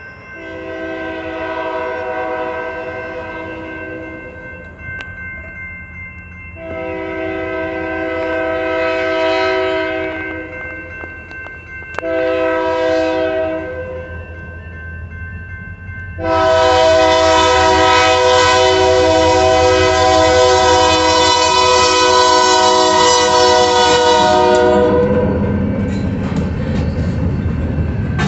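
Approaching train's multi-chime air horn sounding the grade-crossing signal: two long blasts, a short one, then a final long and loudest blast. It is the standard warning for a public road crossing. As the horn stops, the train reaches the crossing and its wheels rumble and clack over the rails.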